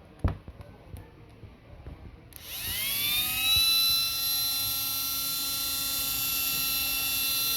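A sharp click and a few lighter clicks, then a 775 12 V DC motor, rewound for high speed, switches on a little over two seconds in and spins up with a rising whine that levels off into a steady high-pitched whine at full speed.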